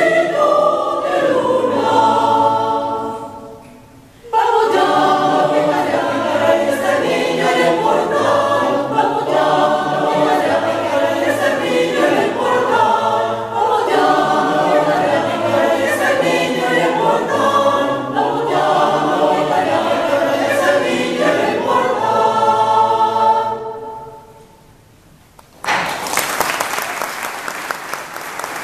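A choir singing a Christmas carol (villancico) in harmony. The voices die away about 3.5 seconds in and start again, and the final chord fades out about 24 seconds in. After a short pause the audience applauds.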